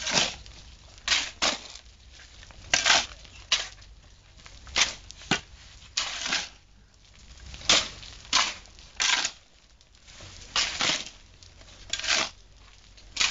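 Shovels scraping and crunching into a dry sand-and-cement pile on the ground as it is turned over by hand for concrete. About a dozen short, irregular scrapes, roughly one a second.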